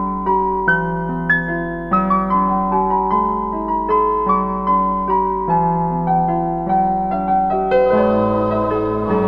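Background music: a gentle electric piano playing a slow melody over chords, with a low bass part coming in near the end.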